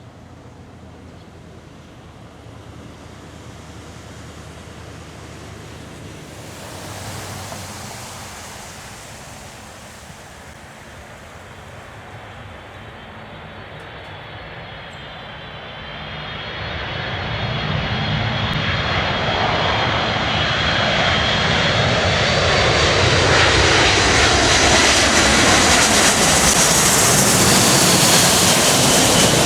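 Boeing C-17A Globemaster III's four turbofan engines approaching on arrival: a distant jet rumble that grows much louder through the second half, with a high fan whine coming in about midway.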